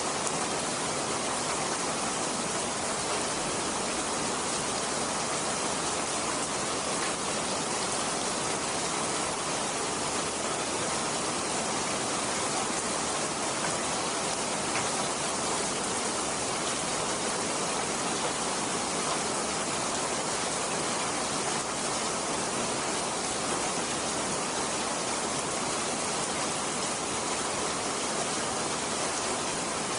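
Steady rain, an unbroken even hiss with no thunderclaps or single drops standing out.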